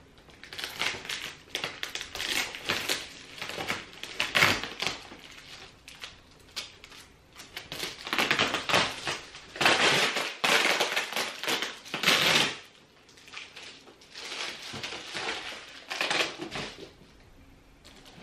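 Foil-faced bubble insulation wrap crinkling and crackling in irregular bursts as it is unwrapped and pulled off a packed plant, loudest in the middle stretch.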